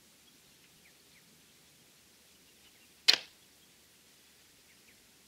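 A 40-pound Toelke Whip custom longbow shot once about three seconds in: a single sharp crack of the string as the arrow is loosed, dying away within a moment.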